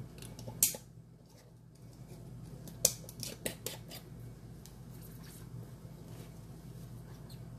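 Metal screw band being twisted onto a glass mason jar over its lid, with a few sharp metal-on-glass clicks and scrapes as it turns. A low steady hum runs underneath.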